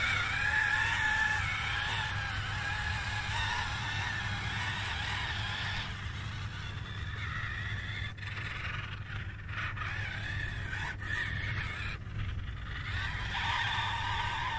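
Fayee radio-controlled tracked truck's electric drive motors and gearboxes whining steadily as it crawls over loose dirt. The whine weakens about six seconds in and comes back strongly near the end.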